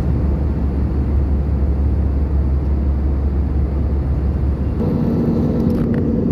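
Steady roar of an airliner's cabin in flight: jet engine and airflow noise. About five seconds in the rumble eases and a steady low hum comes in.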